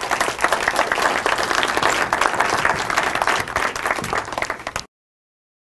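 Audience applauding, a dense steady clapping that cuts off abruptly about five seconds in.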